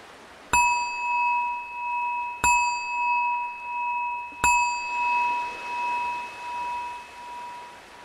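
A meditation bell struck three times, about two seconds apart, each strike ringing on with a slowly pulsing tone; the last rings out for several seconds. A faint steady wash of ocean waves lies underneath.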